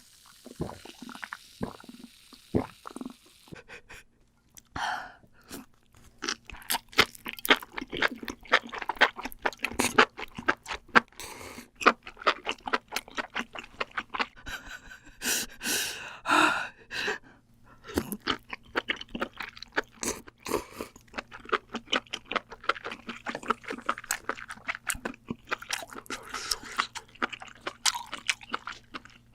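Close-miked eating of crunchy mushrooms: rapid crackling crunches and chewing, bite after bite.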